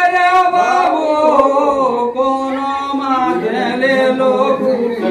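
A man sings a Kudmali sahrai (Bandna festival) folk song unaccompanied, holding long notes that bend and waver in pitch.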